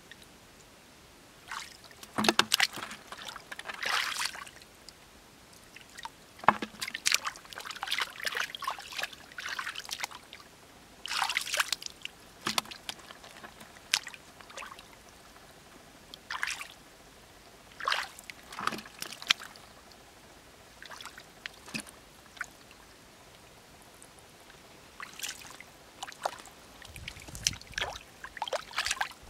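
Hands sloshing and splashing through a shallow, muddy puddle in irregular clusters, with pauses of a second or several between them.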